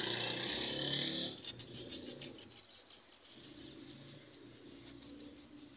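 Cat grooming itself: a soft rustle of fur, then quick rasping licks of its tongue, about six a second, in one loud run and a lighter run near the end.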